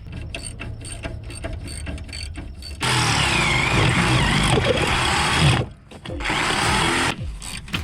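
Power drill running in two bursts, the first about three seconds long and the second about a second, after a stretch of light clicking.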